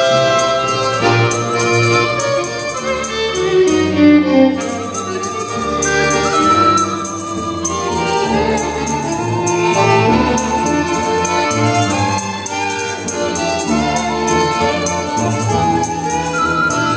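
Amateur Ukrainian folk-music ensemble playing an instrumental tune on bowed strings, a continuous melody with no singing.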